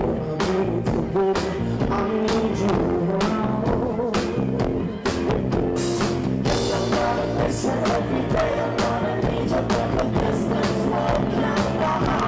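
Live band playing: a male vocalist singing into a microphone over electric guitar and drums with a steady beat.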